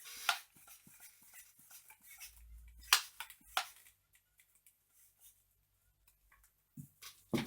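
A few sharp clicks and knocks from a plastic toy foam blaster being handled, the loudest about three seconds in, then near silence for a few seconds.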